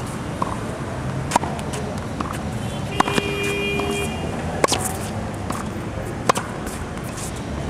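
Tennis balls struck by racket strings during a volley drill: a sharp pop roughly every one and a half seconds.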